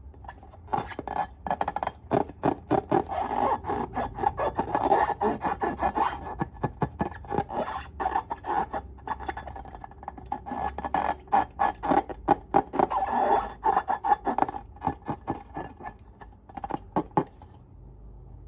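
Slime being squished and worked by hand, giving rapid sticky clicks and crackles in irregular runs over a wet rubbing sound, which dies away near the end.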